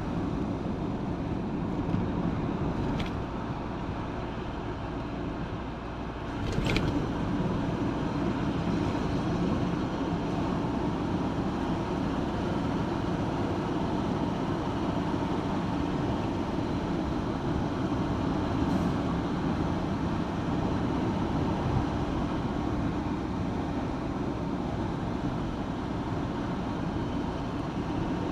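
A vehicle driving along a road: steady engine and tyre noise. There is a faint click about three seconds in, and a sharper click about six to seven seconds in, after which the noise grows a little louder.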